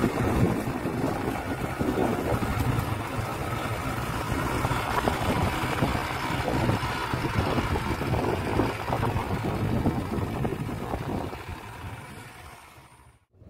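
Motorcycle engine running steadily while riding along a road, with road and wind noise; the sound fades away near the end.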